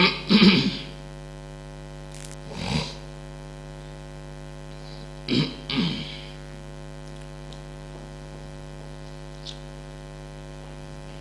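Steady electrical mains hum picked up through the microphone and sound system, with a few brief sounds from a man's voice near the start, about three seconds in, and again around five to six seconds in.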